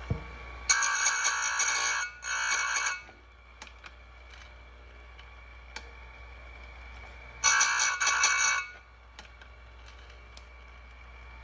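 Bench-mounted chainsaw chain grinder, a Farmertec clone of the Oregon 511, its motor giving a steady high whine while the grinding wheel is brought down onto saw-chain cutters in three bursts of grinding: two close together about a second in, and a third about seven and a half seconds in. Light clicks come between the grinds as the chain is moved on to the next cutter.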